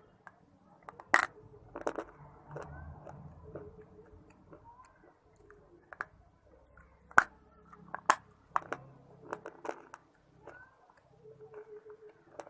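A person biting into and chewing hard, brittle pieces of clay-like shale stone, giving a soft crunch. There are sharp crunches about a second in and again around seven and eight seconds, then a quick run of smaller crunches, with softer chewing between them.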